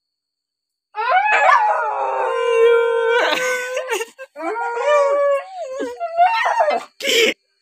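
A black-and-tan dog howling: two long, wavering howls starting about a second in, then a brief harsh sound near the end.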